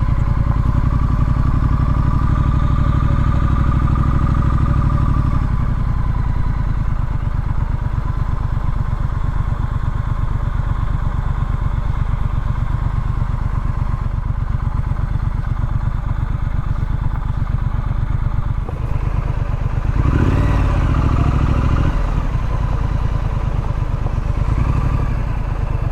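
Triumph Street Scrambler's 900 cc parallel-twin engine running steadily at low speed as the bike is ridden. About twenty seconds in, the engine note rises and falls briefly.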